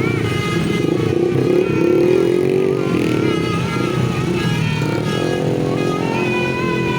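A bus's basuri multi-tone air horn playing a wavering, snake-like tune, several notes sounding together and bending up and down without a break, over the bus's running engine.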